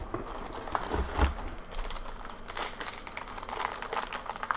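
Crinkling and tearing of a foil booster-pack wrapper being pulled open by hand, a dense run of small crackles that thickens in the second half. A dull thump about a second in.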